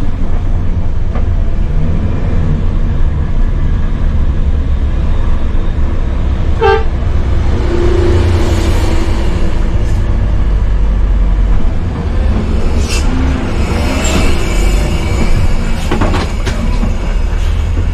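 Bus diesel engine labouring under load on a steep uphill climb, heard from inside the bus as a loud, steady low rumble, with a brief higher-pitched toot about seven seconds in.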